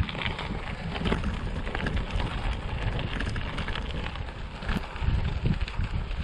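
Wind buffeting the microphone of a gravel bike in motion, with a steady crackle of tyres rolling over a rough surface.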